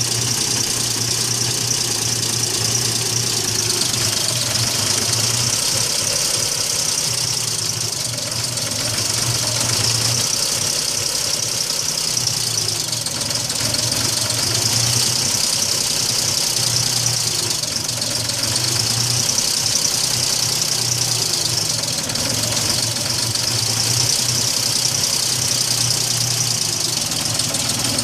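2002 Nissan Xterra's 3.3-litre V6 idling with a steady high-pitched noise over a low hum that swells and fades every few seconds. The noise began after the shop replaced the snapped timing belt.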